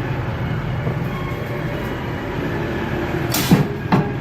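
Homemade power-strip wire welding machine humming steadily, with a short sharp burst about three and a half seconds in, followed by a click.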